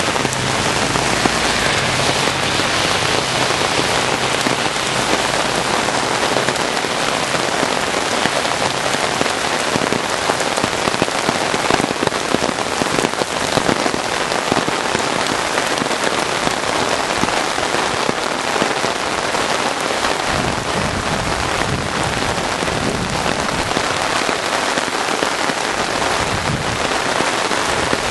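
Steady rain falling on pavement and surfaces: a loud, even hiss that holds without a break.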